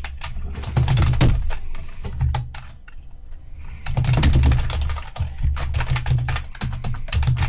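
Computer keyboard typing: a short run of keystrokes, a lull about three seconds in, then a long fast run of keystrokes, over a low steady hum.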